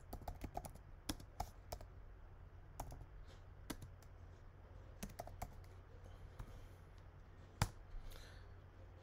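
Typing on a computer keyboard: quiet, irregular key clicks, with one louder key press near the end as the search is entered.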